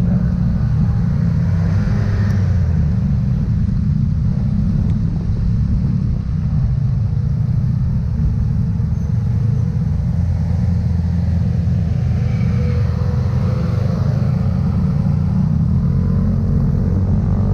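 Motor scooter engine running steadily at low speed, a continuous low drone with a haze of road noise from wet pavement.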